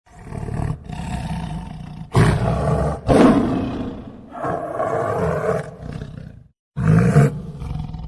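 Tiger roaring and growling in a run of about six low calls with short breaks between them, the loudest two about two and three seconds in.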